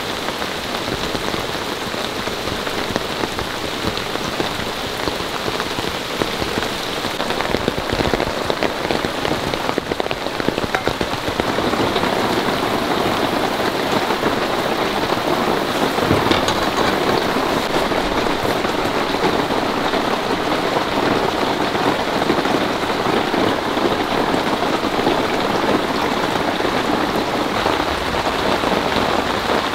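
Heavy rain falling steadily on a tent, with drops from overhanging trees striking its broad fabric; the rain grows louder about twelve seconds in.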